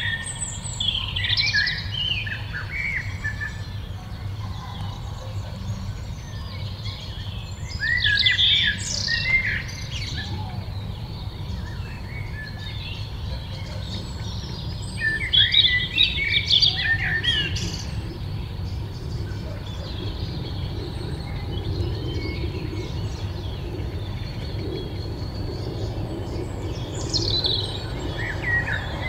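Songbirds singing in short bursts of quick, high chirping phrases every several seconds, over a steady low rumble.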